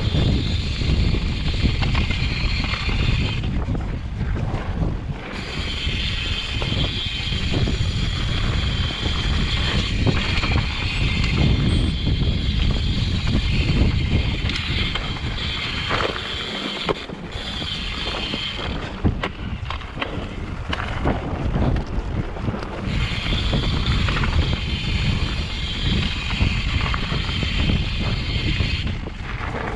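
A mountain bike ridden over a dirt singletrack: wind buffeting the microphone with a constant rumble, over the tyres rolling on dirt and rocks and short rattles and knocks from the bike over bumps.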